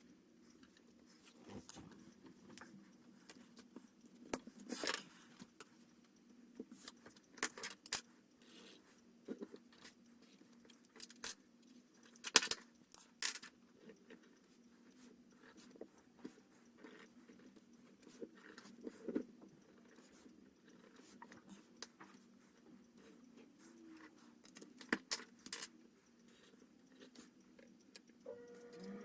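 Scattered light clicks and taps of small objects being handled, the sharpest about twelve seconds in, over a steady low hum.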